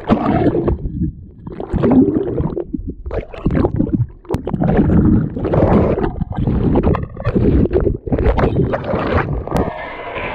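Surfboard paddling: hands stroking through seawater in repeated splashing surges about once a second, with water gurgling over a camera that dips under the surface. Near the end it turns to a more even rush of whitewater as the wave breaks around the board.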